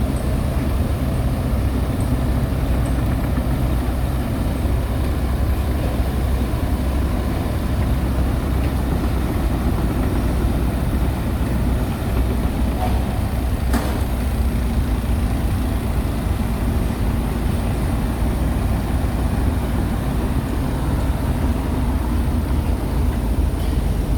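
Heavy diesel engine of earthmoving machinery running steadily, with one sharp click about fourteen seconds in.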